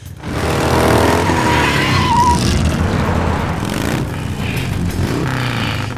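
Motorcycle engine revving and accelerating, rising in pitch as it pulls away, with a short high squeal about a second in.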